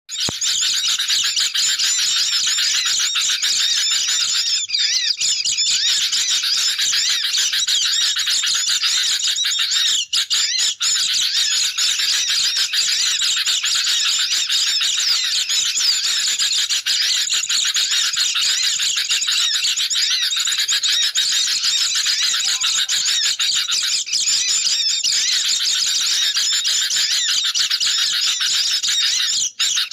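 A dense, unbroken chorus of high-pitched, agitated chattering and twittering calls from sooty-headed bulbuls mixed with white-eyes. It is a noisy bird-trapping lure call meant to draw wild birds in.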